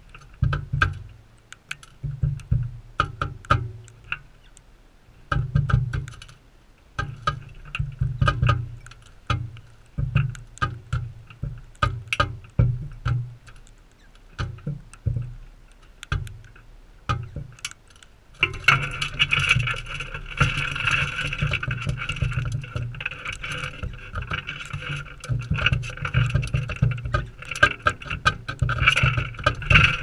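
Galahs pecking seed from a metal feeding dish beside the microphone: irregular knocks, taps and scrapes of beaks and feet on the metal, often several in quick succession. About two-thirds of the way through, a steadier, higher sound joins the knocking.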